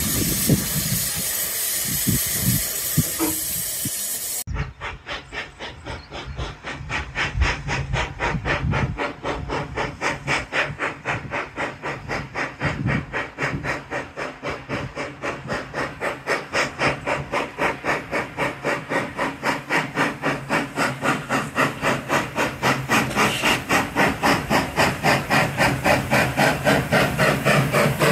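Steam locomotive hissing steadily for about four seconds. Then come its exhaust beats, about four chuffs a second, growing louder as the engine works towards the listener.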